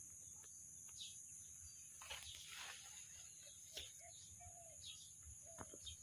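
Faint outdoor ambience: a steady high-pitched insect drone, with a few short bird chirps and light rustles of leaves.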